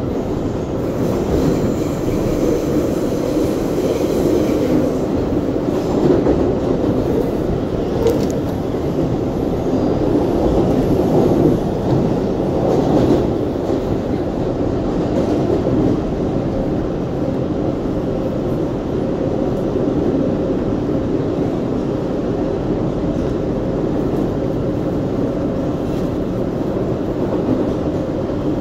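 An R142A subway car running on the track, heard from inside the car: a steady, loud rumble of wheels and running gear.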